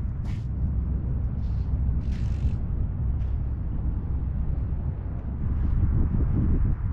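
Wind buffeting the microphone in a steady low rumble, with a few short hissing swishes over it.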